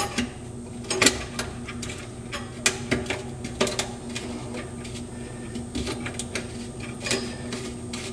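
Pivot nut being screwed by hand onto a bathroom sink pop-up drain body over the pop-up rod's ball: irregular light clicks and scrapes of the threads, several close together about a second in and again around three to four seconds in.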